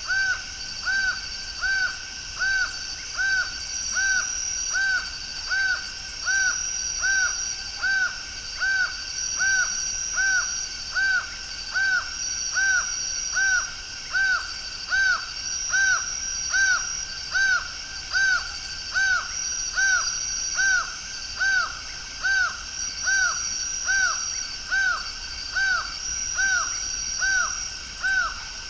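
Laughing falcon (acauã) calling in a long, even series of arched notes, one about every second. A steady high trilling runs underneath, with longer high buzzes every second or two.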